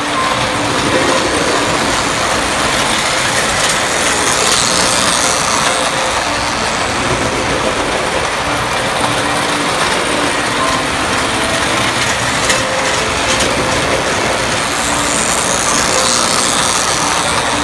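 Marx tinplate O-scale electric toy trains running on metal track: the steady metallic rattle of the tin cars shaking on the rails, with the growl of the locomotive motors as they run around the curves.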